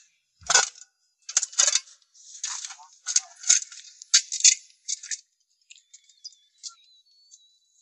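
Pickaxe and shovel digging into stony red earth, with rocks clattering: about six strokes roughly a second apart, then only faint clicks after about five seconds.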